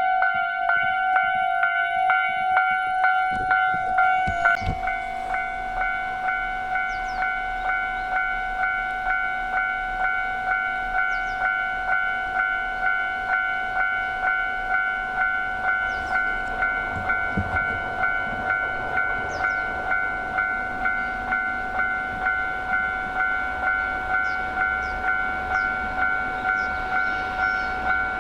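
Japanese level crossing warning bell ringing with its steady, evenly repeating electronic ding. About four seconds in, the low rumble of a passing freight train headed by electric locomotives rises beneath it and carries on under the bell.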